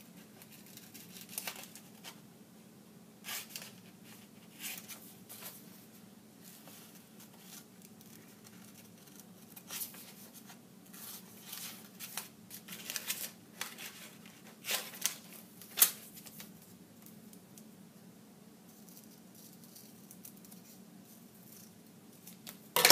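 Scissors snipping through paper to cut out drawn leaf shapes: irregular sharp snips, coming thicker in the middle stretch, with light paper handling between them.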